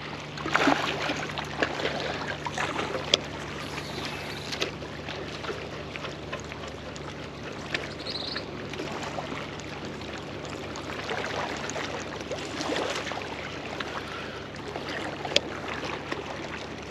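Water lapping and splashing at the shoreline under a steady low hum, with a few sharp clicks along the way.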